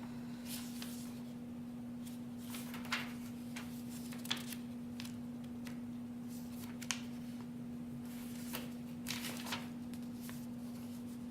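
Paper crinkling and rustling in irregular short bursts with a few sharp crackles as an instruction leaflet is handled and unfolded, over a steady low hum.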